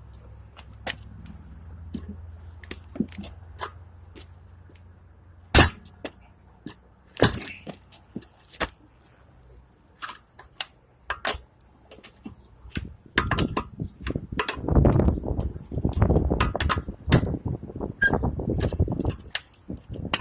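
Metal clinks and knocks from a lug wrench working on a car wheel's lug nuts, with one sharp knock about five and a half seconds in. From about two thirds of the way through it turns into a louder, rough rumbling clatter with many knocks.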